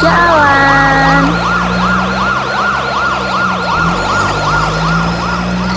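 Police car siren wailing in quick, repeating rising-and-falling whoops over a steady low engine drone.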